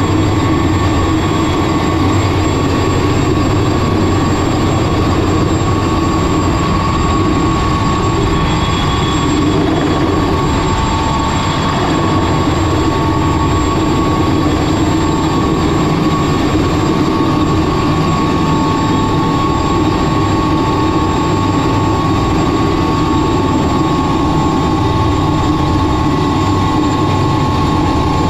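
Mosquito XET kit helicopter's turbine engine and rotor running steadily, heard from the open cockpit: a steady high whine over a low rumble.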